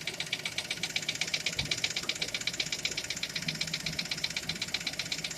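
Skoda Fabia engine running steadily with a rapid, even knock, about a dozen sharp ticks a second; its cause has not yet been found.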